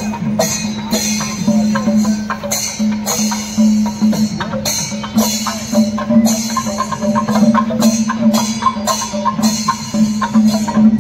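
Kerala temple festival percussion ensemble playing: drums and metal cymbals struck in a fast, steady rhythm, with cymbal clashes about twice a second over a continuous drone and shifting pitched notes.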